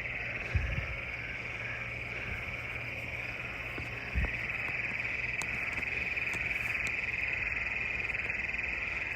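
A chorus of frogs trilling steadily in one continuous high-pitched drone, with a soft low bump about four seconds in.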